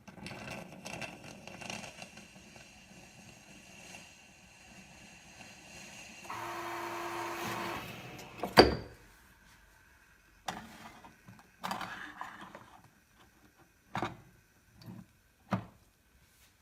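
Krups automatic espresso machine running: a wavering mechanical hum, then a louder steady motor whine for about two seconds. It ends in a sharp click, followed by a few lighter knocks and clicks.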